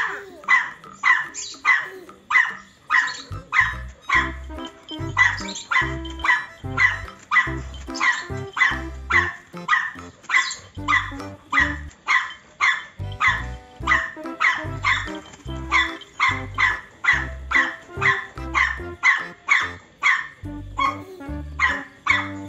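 Dog barking repeatedly, about two barks a second, over background music with a steady bass beat that comes in about three seconds in.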